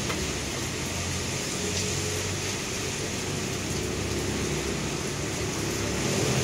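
Steady hiss of steaming cookpots on a stove, with a low hum underneath.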